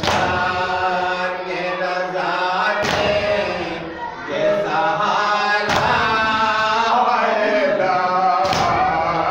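Men's voices chanting an Urdu noha, a Shia lament, together. About every three seconds, four times in all, comes a sharp slap of hands striking chests in matam, keeping the beat of the lament.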